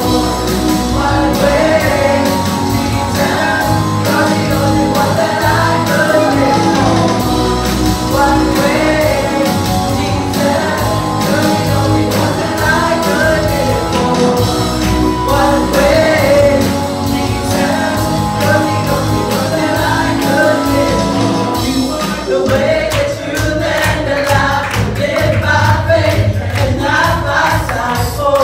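Live church worship band playing a song: a woman singing lead into a microphone with other singers, over electric guitar, a steady bass line and drums that come through more strongly near the end.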